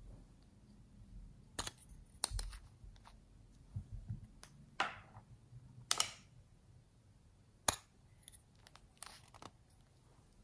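Plastic lipstick tube being handled and opened: a scattered series of sharp plastic clicks and two short sliding scrapes as the cap comes off, with one especially crisp click near the end of the middle.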